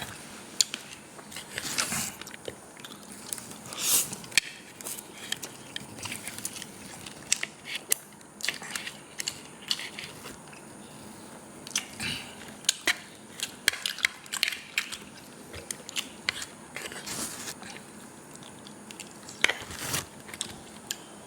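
A person eating kolo mee noodles close to the microphone: irregular wet chewing and mouth sounds with short sharp clicks, and a few longer noisy slurps.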